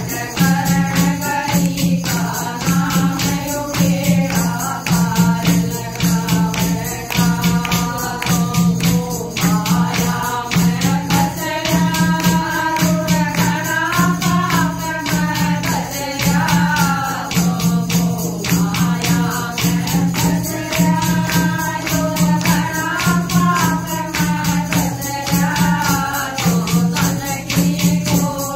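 A group of women singing a Haryanvi bhajan together, with a steady fast beat of hand-clapping and a clay pot (ghara) struck as a drum for a deep, regular pulse.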